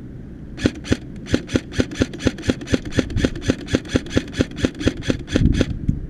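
An airsoft rifle firing a long string of rapid single shots, about four a second, with a short pause near the end of the string.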